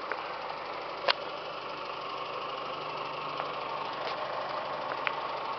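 A 2012 Fiat 500's 1.4-litre four-cylinder engine idling steadily, with a few faint clicks.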